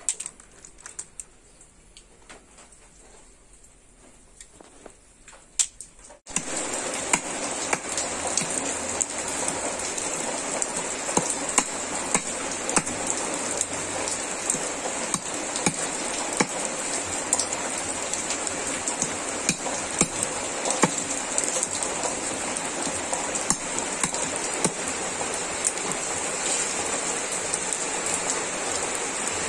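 A few faint clicks of snail shells being handled, then after a sudden cut a steady hiss of rain. Scattered sharp knocks and clicks run through the rain as a knife blade chops the tips off snail shells.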